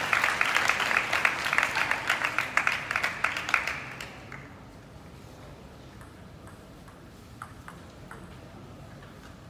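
Spectators applauding a point in a table tennis match, the clapping dying away about four seconds in. A couple of faint taps follow.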